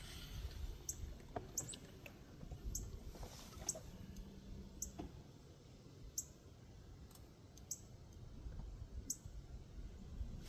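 Faint, scattered sharp clicks and ticks, about ten of them at irregular intervals, over a low rumble of wind on the microphone.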